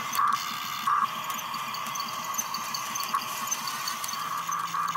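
Small electric gear motors of a toy RC excavator whirring as the arm and bucket work. The whir comes in two short louder spurts about a quarter and a second in, then runs on more weakly.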